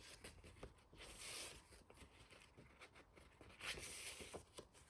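Faint rustling of handmade paper sheets being handled, with a couple of soft swishes about a second in and again near the end.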